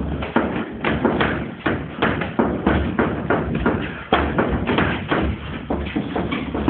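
Sparring strikes landing: an irregular run of thuds and slaps, several a second.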